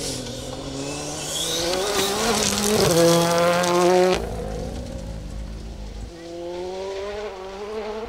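Ford Fiesta R5 rally car's turbocharged 1.6-litre four-cylinder engine revving hard as it slides by on loose gravel, pitch climbing to its loudest about four seconds in, then cutting off sharply. The engine note picks up again, fainter, a couple of seconds later as the car pulls away.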